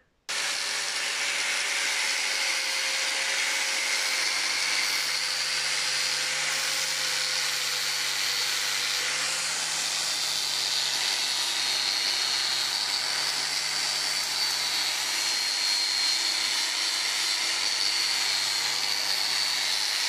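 Bosch angle grinder with a grinding wheel, switched on at the very start and running steadily under load as it grinds the end of a steel hay-rake tine arm clean for welding, with a steady high whine over the grinding noise.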